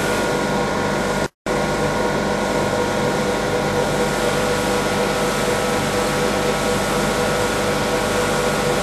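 Bag-filling and stitching packing machine running, a loud steady mechanical hum with several steady tones. The sound cuts out completely for a moment about a second and a half in, then resumes unchanged.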